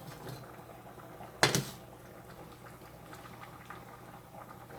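Faint bubbling of a pan of oil and water heating on the stove, with one sharp clatter about a second and a half in.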